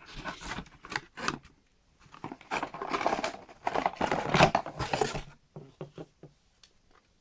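Cardboard box and its packaging being opened by hand: scraping, sliding and rustling, loudest from about two to five seconds in, then a few light clicks near the end.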